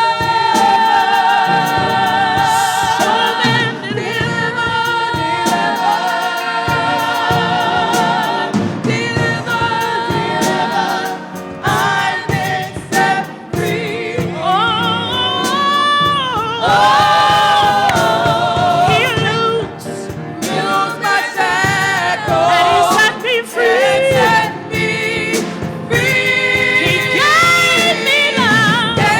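Gospel choir singing a worship song, with wavering held notes and a sliding vocal run about halfway through.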